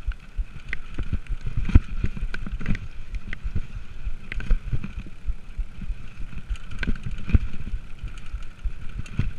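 Mountain bike riding fast down a bumpy dirt singletrack, picked up by a camera mounted on the rider: a constant low rumble of tyres on the trail, with frequent rattles and knocks from the bike over bumps and roots.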